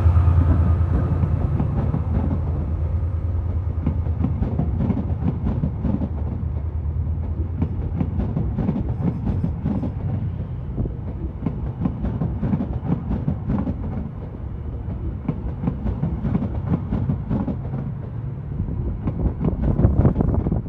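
TransPennine Express Class 68 diesel locomotive and its Mark 5A coaches passing. The locomotive's low engine hum fades over the first few seconds, then the coaches roll by with their wheels clicking over the track again and again.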